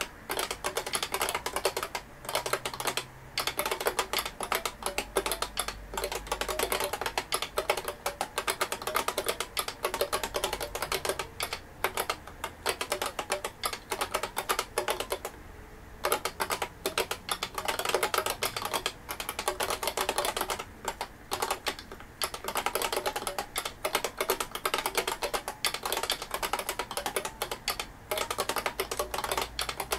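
Fast, continuous typing on an IBM 5251 beam spring keyboard: a dense stream of loud key clacks, with one brief pause about halfway through.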